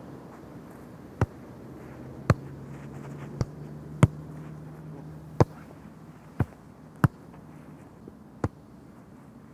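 A football being kicked repeatedly in the air: sharp thuds of foot striking ball, about eight of them, roughly one a second at an uneven pace.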